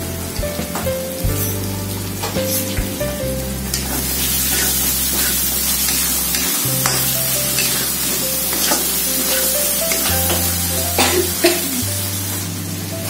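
Spice paste sizzling as it fries in a wok, with a metal spatula scraping and stirring it against the pan in short strokes. Background music with a steady bass line runs underneath.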